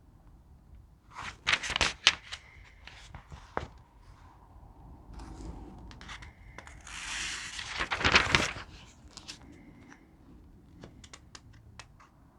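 Packaging being handled: crinkling and crackling, then a louder tearing rip about seven to eight seconds in, followed by scattered small crackles.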